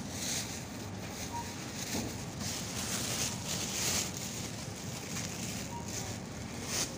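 Supermarket background noise: a steady, even hum with several brief rustles, about two and four seconds in and again near the end.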